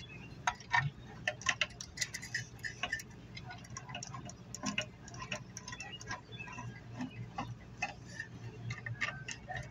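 Ratcheting screwdriver clicking in quick, irregular runs as screws are driven back into a C-frame exhaust fan motor during reassembly.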